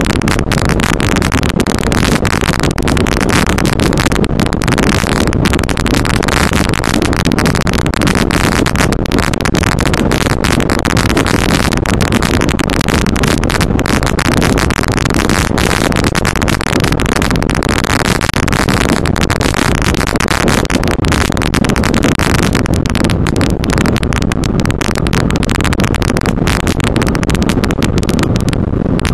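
Stock-class off-road race vehicle driving fast over a rough desert dirt track, heard from inside the cab. The engine, tyres and rattling body run together as one loud, steady noise, broken by constant short knocks and jolts.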